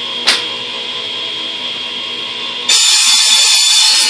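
Radial arm saw cutting through plastic pipe: a loud, hissing cut that starts suddenly late on and lasts about a second and a half. Before it there is one sharp knock.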